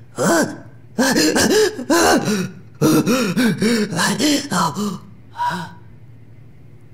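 An animated character's wordless voice: a quick run of babbling exclamations and gasps, each swooping up and down in pitch, over a faint low hum.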